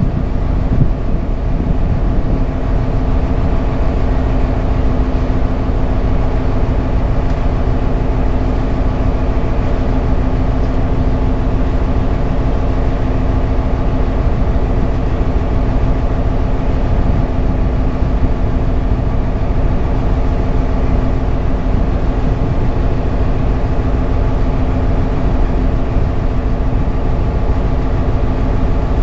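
A dhoni's engine running steadily under way, heard from on board: a constant low drone with an unchanging pitch.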